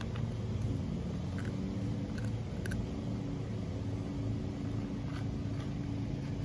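Steady low rumble of road traffic with a faint steady hum, and a few faint short ticks scattered through it; no meow is heard.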